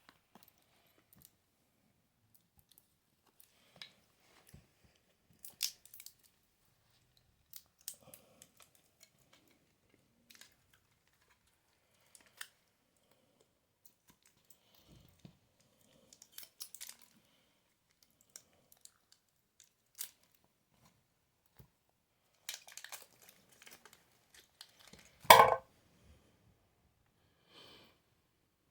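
Hands handling the plastic parts of a Dyson cordless vacuum during a battery swap: scattered small clicks and crinkly rustles with pauses between them, and one louder clatter about 25 seconds in.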